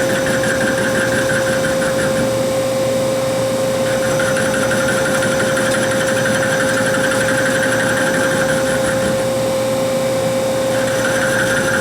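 Hardinge Conquest SB CNC lathe running with its door open: a steady whine throughout, with a higher sound that comes and goes in stretches of a few seconds, breaking off twice, about two seconds in and about nine seconds in.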